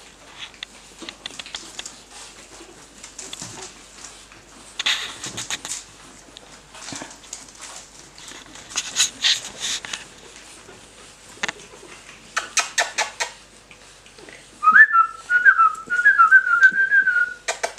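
Pug puppies' claws scrabbling and skittering over slate tiles and newspaper, in scattered bursts of clicks and rustles. Near the end a wavering, whistle-like high tone is held for about three seconds.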